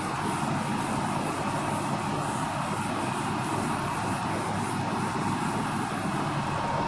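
A whiteboard duster rubbed back and forth over a whiteboard in repeated wiping strokes, wiping it clean, over a steady background rumble.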